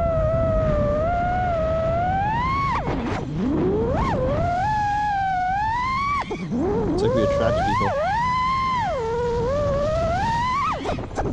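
FPV freestyle quadcopter's brushless motors and HQProp J37 props whining in flight, the pitch rising and falling with the throttle. The whine dips sharply and climbs back twice, about three and six and a half seconds in, with a few quicker swoops near the end.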